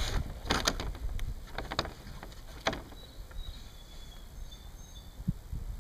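Wind rumbling on the microphone outdoors, with a few sharp clicks and knocks of handling in the first three seconds and faint high thin tones in the middle.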